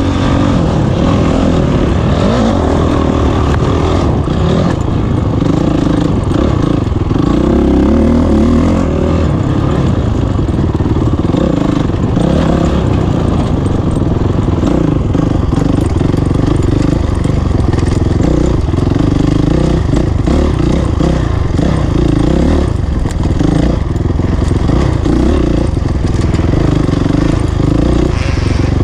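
Honda CRF450 four-stroke single-cylinder dirt bike engine running hard under race throttle, its pitch rising and falling constantly as the rider gets on and off the gas, with occasional short clatters.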